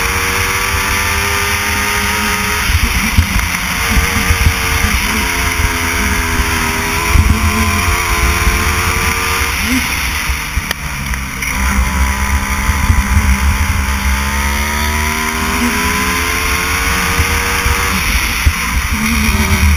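Go-kart engine heard from on board at speed, its pitch repeatedly climbing as it revs out and dropping back. It falls away and quietens briefly about halfway through, then rises in one long climb.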